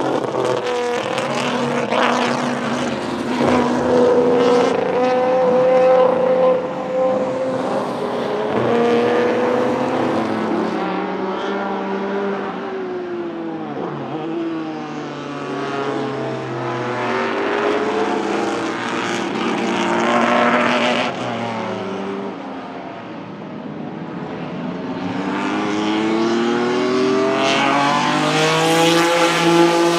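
Cosworth GAA 3.4-litre DOHC V6 engines of Ford Capri RS 3100 Group 2 race cars going by one after another at racing speed. The engines rise through the revs and fall off on the lift and downshifts, and their pitch drops as each car passes, most clearly about halfway through.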